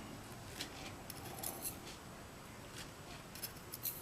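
Faint, light clicks at irregular intervals, several close together near the end, as tiny pin springs are taken out of the pin chambers of a brass padlock.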